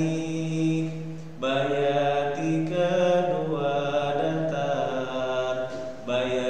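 A man's voice reciting the Qur'an in a melodic, chanted style, holding long drawn-out notes that step up and level off, with a breath about a second in and another near the end. It demonstrates the nada mina melodic pattern (rise, level, slant, rise) in maqam bayati.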